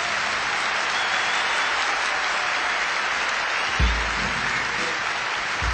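Concert audience applauding at the end of a song, with a low boom about four seconds in and again near the end.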